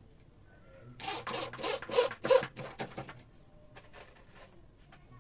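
Cordless drill driving a screw into a rubberwood board in a quick series of short pulses, starting about a second in and lasting about two seconds, the last few the loudest.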